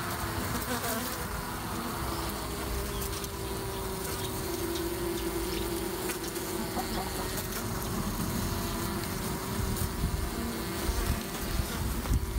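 Honeybees buzzing in a steady hum over the open frames of a hive, with a low rumble underneath and a few louder bumps near the end.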